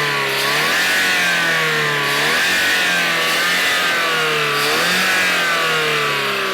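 Honda Vezel's four-cylinder direct-injection petrol engine being revved by hand several times, its pitch rising and falling with each throttle blip and easing down near the end. The engine is running on freshly ultrasonic-cleaned GDI injectors, fitted to cure a P0300 random-misfire code.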